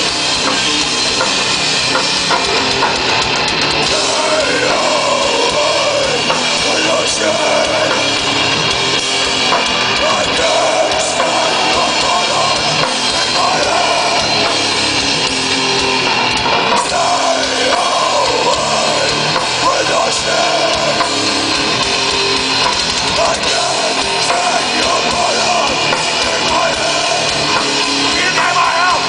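Live rock band playing loudly: a drum kit and electric guitar, with a lead line that bends and wavers in pitch over the dense band sound.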